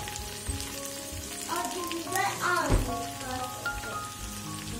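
Potatoes sizzling as they fry in a pan, a steady crackle under background music with held notes. A short, louder falling swoop ending in a low thump comes a little past the middle.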